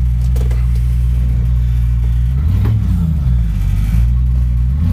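1998 Land Rover Discovery's engine held at high revs during a burnout on hard dirt, heard from inside the cab. The engine note wavers briefly about two and a half seconds in, then settles again.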